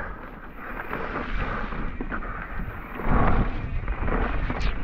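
Mountain bike riding over a wet, muddy trail: a steady noisy rumble of tyres and bike with scattered knocks and rattles from bumps, swelling louder a little past three seconds in.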